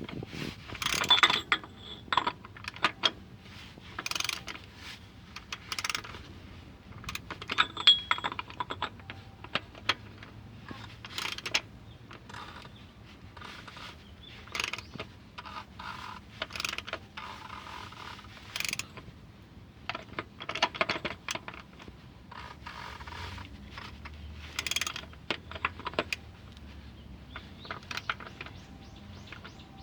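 Hand ratchet clicking in short irregular runs, with light metallic clinks, as the cartridge oil filter housing cap is being tightened.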